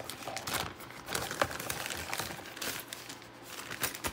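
Plastic packaging crinkling and rustling in irregular crackles as it is handled and opened, with a few small clicks.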